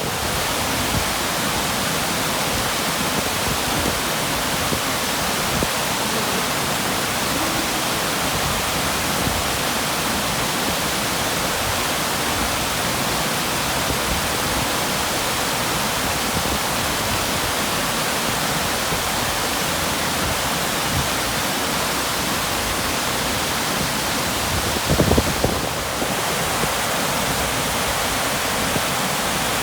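Waterfall, a steady full rushing of falling water. A brief low bump about 25 seconds in.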